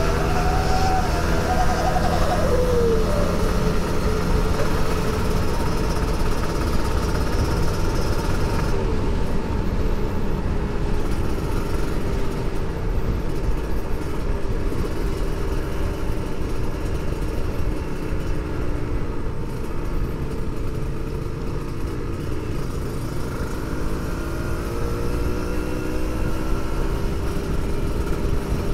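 Kawasaki Ninja 150 RR's two-stroke single-cylinder engine running while riding, under heavy wind and road noise. Its pitch falls in the first few seconds as the throttle eases and rises again near the end as it accelerates.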